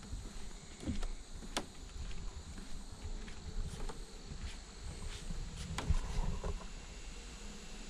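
Steady high-pitched trilling of insects in a forest, with irregular low thumps and crackles over it.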